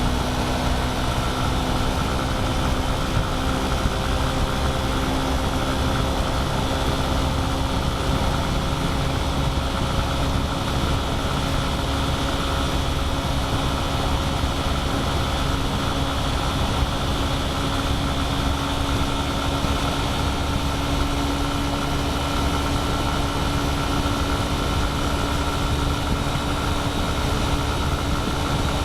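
A vehicle's engine running at a steady cruising speed on a highway, its note holding nearly level and rising only slightly over the stretch, under a constant rush of road and wind noise.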